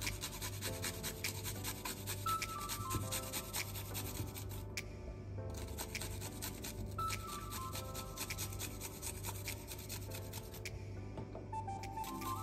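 Garlic cloves being grated on a small metal hand grater: rapid rasping strokes, pausing briefly twice, over soft background music.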